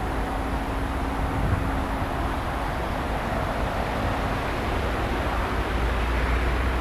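Coaster commuter train of bilevel cars running away down the track, heard as a steady rumble and hiss. A faint steady hum fades out about two seconds in.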